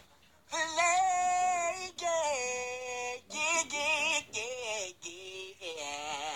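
High-pitched voice singing, holding long notes that bend up and down, coming in about half a second in.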